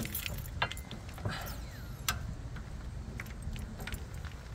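Scattered small metallic clicks and taps with a light jingle of keys, from a bunch of keys hanging on a trailer coupling-head lock and the coupling being handled on the tow ball. A low steady rumble runs underneath.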